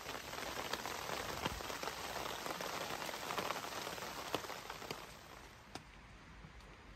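Rain pattering on a tarp stretched over a hammock: a dense patter of drops with sharper single drips standing out, easing off after about five seconds.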